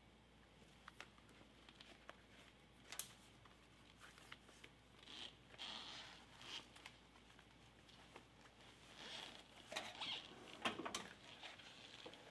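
Faint rustling and scattered small clicks from a book and a shoulder bag being handled. There is a sharp click about three seconds in, and denser rustling with a few clicks near the end.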